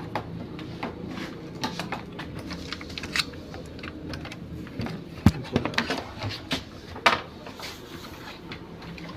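Irregular clicks and knocks of parts and tools being handled during washing machine repair work, over a low steady hum. Sharper knocks come about five seconds in and again about seven seconds in.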